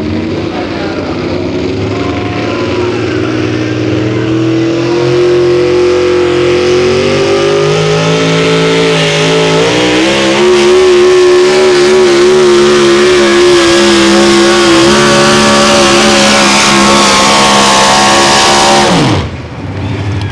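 Engine of a competition pulling tractor or truck at full throttle under load, its note climbing and wavering at high revs. Near the end the throttle is dropped and the engine note falls away sharply.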